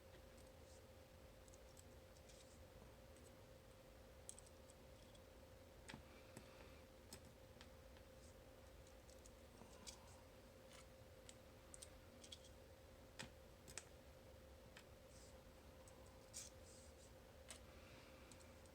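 Faint, scattered light clicks of the small metal discs and spacers of a disassembled Abloy Classic disc-detainer lock being handled, over a faint steady hum.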